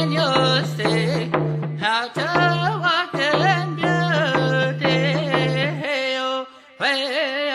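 Background music: a wavering melodic line over a steady low drone. It drops out briefly a little after six seconds in, then resumes.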